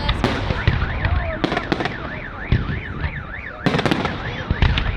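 Festive fireworks bursting in repeated sharp bangs and crackles. Behind them a car alarm wails up and down about three times a second, starting about half a second in and fading out near the end.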